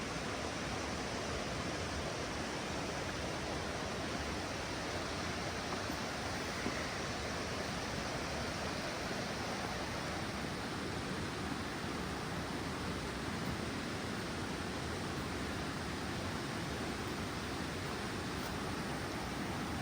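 Steady rush of flowing water, an even hiss without breaks or changes.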